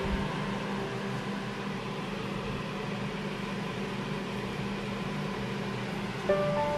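A steady machine hum with an even hiss. Near the end, music with bright mallet notes comes in.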